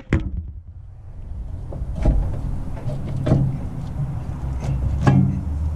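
Metal knocks and clunks of a rear brake caliper being wiggled and worked loose from the rotor by hand, with short sharp knocks about two, three and five seconds in, over a low steady rumble.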